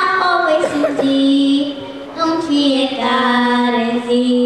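A young girl singing a cappella into a hand-held microphone, with no accompaniment: long held notes, a brief break for breath about two seconds in, then another sustained note.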